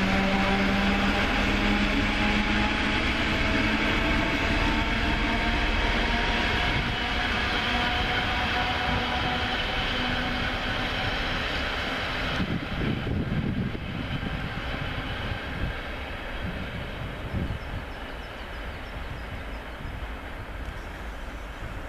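Class 754 diesel-electric locomotive hauling passenger coaches away. The engine's hum slowly drops in pitch and fades, leaving a rumble of wheels on rails that keeps getting quieter, with a few low thumps about halfway.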